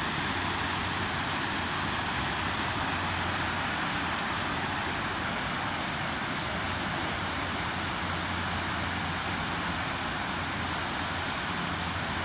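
Shallow mountain river rushing over a low stepped weir and rocks: a steady, dense rush of white water, with a low rumble underneath that grows stronger about halfway through.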